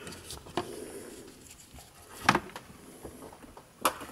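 Small clicks and knocks as the opened plastic speaker housing and its circuit board are handled with gloved hands, the sharpest a little after two seconds in and another near the end, over faint rustling.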